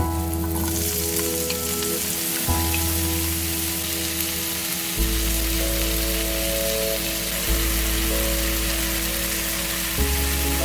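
Food sizzling steadily as it fries in oil in a pan, building up about half a second in, over background music of sustained chords.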